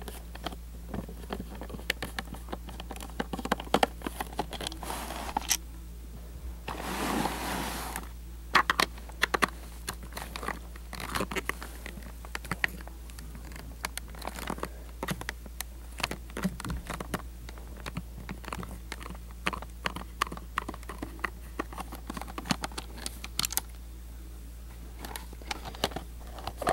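Small screwdriver working the screws out of a plastic VHS cassette shell, with scattered light clicks and ticks of metal on plastic and the shell being handled, and one longer scrape about seven seconds in.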